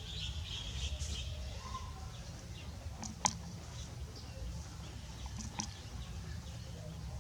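Faint high chirping of small birds over a low steady rumble, with a sharp click about three seconds in.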